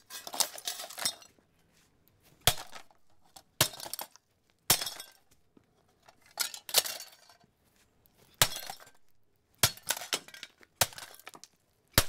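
A run of about ten sharp clanks and clinks, one to two seconds apart, each ringing briefly: a Lucci Air Futura ceiling fan's cheap cast-metal motor housing and plastic parts being struck with a sledgehammer and knocked about as the fan is broken apart.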